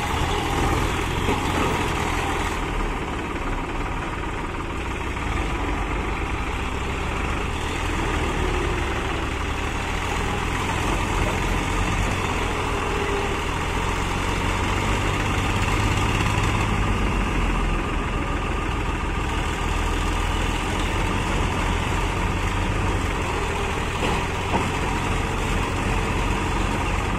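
Diesel tractor engines running steadily close by, with the engine note rising a little about halfway through, as an old HMT tractor works to pull a stuck Farmtrac tractor free.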